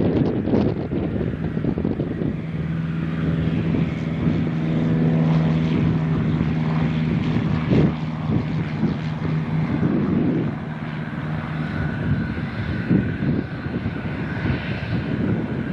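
Propeller-driven private plane's engine droning steadily as it flies by, strongest in the middle and then fading.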